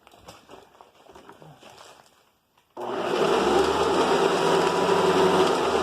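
Faint handling noises, then about three seconds in a Hoover upright vacuum cleaner switches on and runs with a steady motor hum.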